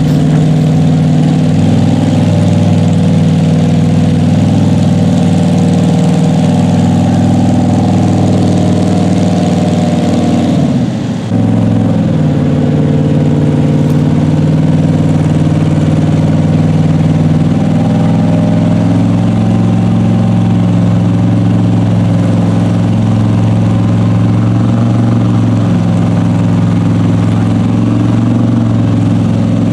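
Lifted Chevy Blazer mud truck's engine running loudly at a steady speed while it crawls through water and mud, with a brief dip and shift in pitch about eleven seconds in.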